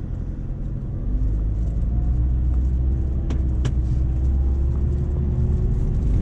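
Nissan Navara D40's turbocharged engine heard from inside the cab as the pickup drives off and pulls uphill under load. It is a low rumble that grows louder about a second in, with a faint engine note rising slowly. Two sharp clicks come a little past the middle.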